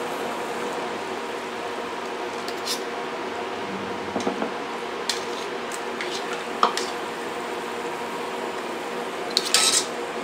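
Metal tongs clinking and scraping against a stainless steel pot as pork hocks are put into the hot water, several separate clinks and a louder cluster of clanks near the end, over a steady hiss from the pot.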